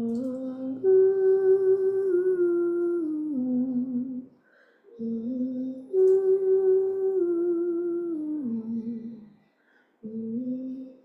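A woman humming a slow, wordless tune in three phrases. The first two phrases are alike, each stepping up to a held note and then sinking back down step by step; the third is short.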